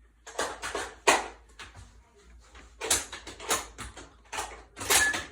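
Rifle being handled and dry-fired: an uneven run of clicks, knocks and rattles from the rifle and gear being worked against a chair, with a short electronic timer beep near the end.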